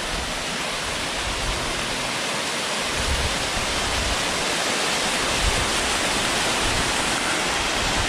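Rushing water: a steady, even hiss.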